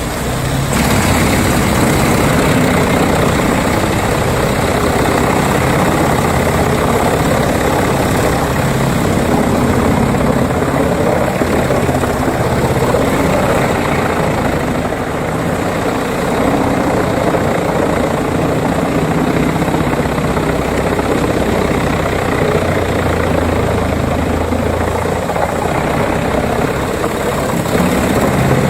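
Wood chipper running steadily under power, its engine and machine noise loud and even throughout.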